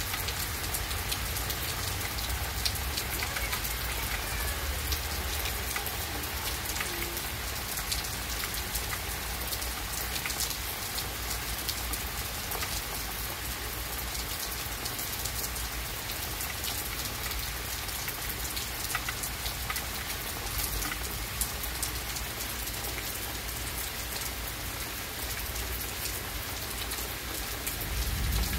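Steady rain falling on trees, lawn and patio, with scattered close drops ticking through the hiss. A low rumble comes in near the end.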